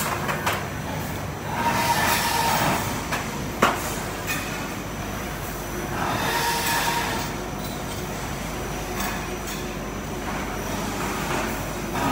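Nine-roller automatic pipe bending machine rolling a 49 mm steel pipe with a 3 mm wall through its bending rollers: a steady mechanical rumble that swells with a faint whine every four to five seconds as the pipe scrapes through the rollers, plus a single sharp clack about three and a half seconds in.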